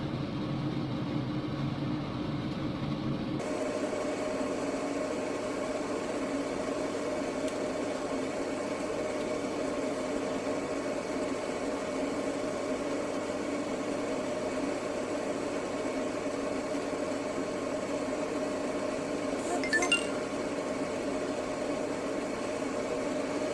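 Oven running with a steady hum, and a brief clink about twenty seconds in.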